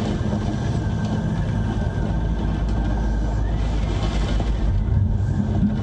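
Steady deep rumbling noise, heaviest in the low range, with no clear rhythm or breaks.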